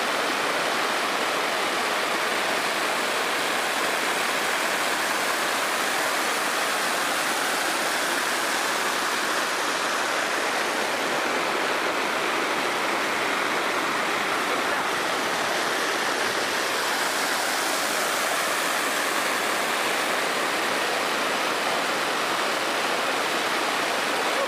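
Waterfall: water rushing and splashing steadily in an even, unbroken hiss.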